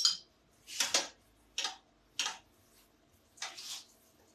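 Five short scrapes and clinks of a metal kitchen utensil against a frying pan and bowls, spaced irregularly over about four seconds.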